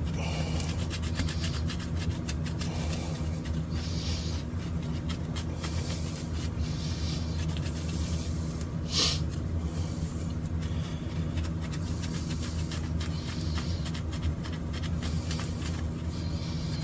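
A cloth rubbing polishing compound by hand over a guitar pickguard: repeated swishing strokes over a steady low hum, with one sharp click about nine seconds in.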